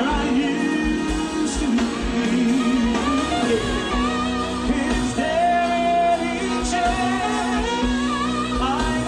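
R&B ballad with a male voice singing long, wavering, ornamented notes over a band with sustained keyboard chords and a steady kick drum.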